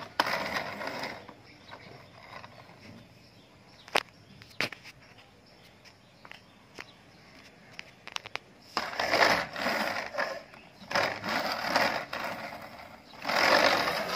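Plastic toy dump trucks being handled and pushed across a hard floor: a few sharp plastic clicks and knocks, then three bursts of wheels rolling and scraping over the floor near the end.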